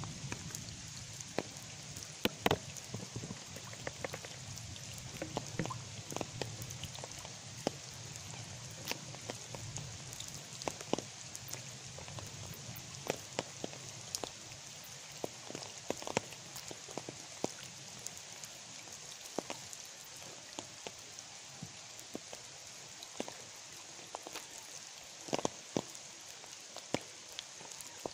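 Light rain: separate raindrops falling into a puddle on pavement, many irregular drips over a steady hiss of rain.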